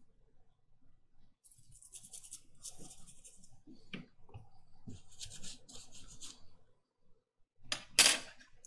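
Toothbrush bristles scrubbing a small BIOS chip held in tweezers, in two spells of quick back-and-forth strokes, as the chip is cleaned before programming. A single click comes just before four seconds in, and a louder brief rasp near the end.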